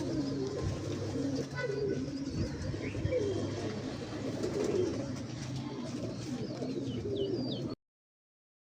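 Domestic pigeons cooing over and over. The sound cuts off about a second before the end.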